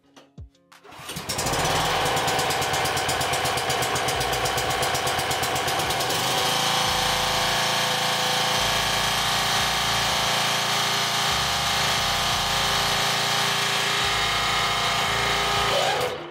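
The Kawasaki engine of an MTD Pro walk-behind mower starts about a second in and runs steadily once freshly tuned up, with background music underneath. The sound cuts off suddenly near the end.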